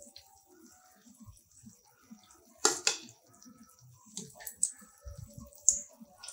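Milk-powder lalmohan balls frying gently in oil with a faint high sizzle, as a perforated metal skimmer turns them. The skimmer makes several sharp clicks against the pan, the loudest pair about two and a half to three seconds in.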